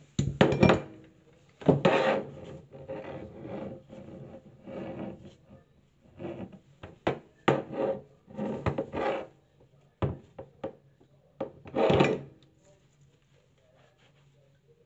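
Irregular rubbing and scraping strokes from hands handling and wiping things at the tap fittings, with a few short sharp clicks and knocks in between. The loudest strokes come right at the start, about two seconds in, and about twelve seconds in.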